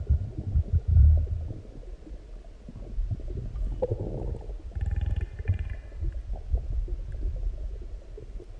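Human stomach growling and gurgling after a large meal: irregular deep rumbles, loudest about a second in, with a higher, squeaky gurgle around the middle.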